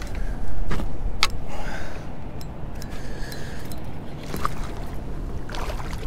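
Steady low rumble of wind and rough water below a dam spillway, with a few sharp clicks and knocks from fishing gear and the landing net against the metal boat.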